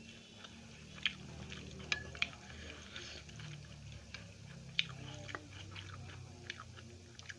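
Close-up chewing and biting of food, with scattered sharp mouth clicks over a steady low hum.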